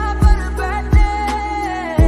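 Background music from a song mashup: a slow song with a deep kick drum about every half second under a held melody line.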